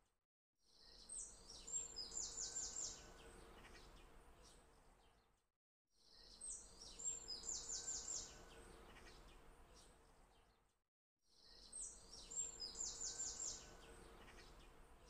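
A short recording of birdsong played on a loop, three times over. Each pass is a faint hiss with a burst of high chirps and a quick trill of notes about a second in, then dies away into a brief silence before it starts again.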